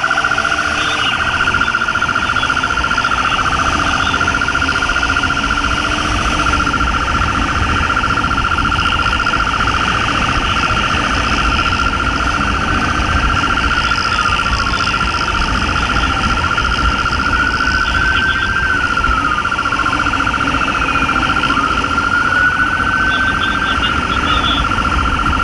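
Police motorcycle sirens: one steady high electronic tone with a fast flutter throughout, joined about halfway through by a siren wailing slowly up and down, over the wind and engine noise of a motorcycle riding at speed.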